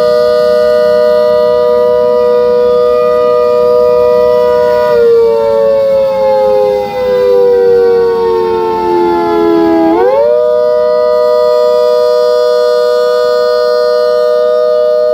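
Miniature ACA Hurricane rotating siren sounding a two-tone chord. It holds at full pitch, winds down slowly from about five seconds in, then winds back up sharply at about ten seconds and holds again.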